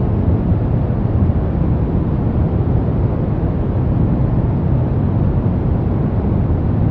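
Soft brown noise: a steady, even hiss that is deep and rumbly, with most of its weight low and little treble.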